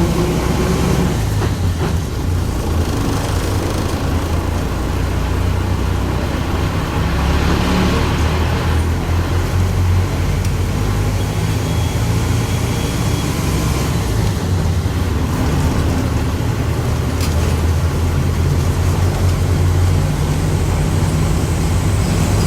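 Volkswagen 17.230 OD city bus under way, heard from on board: a steady low engine and drivetrain drone over road noise, with the differential growling loudly, the sign of a worn differential. A single sharp click about three-quarters of the way through.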